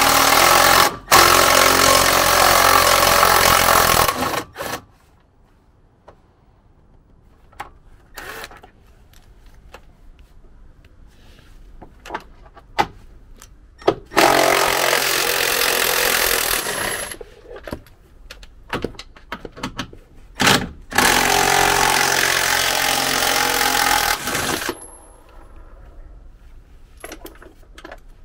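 Cordless Milwaukee impact driver hammering in three bursts of a few seconds each, backing out the 13 mm bolts that hold a truck's battery tray, with small clicks and knocks of handling between the bursts.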